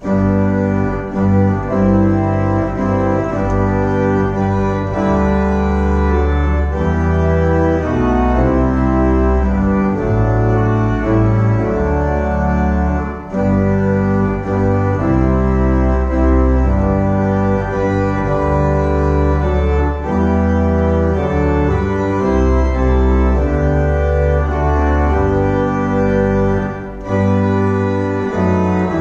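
Church organ played in full held chords over a deep pedal bass, the chords changing every second or two, with brief breaks about 13 and 27 seconds in.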